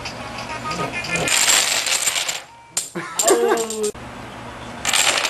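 Dominoes clattering as they topple and fall against each other on a desk, about a second in and briefly again near the end. A short squeal with a wavering pitch comes in between.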